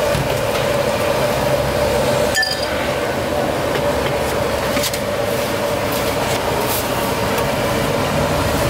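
Clinks of ceramic bowls and metal utensils at a busy noodle stall over a steady hum. One sharp, ringing clink comes about two and a half seconds in, with lighter clicks scattered after it.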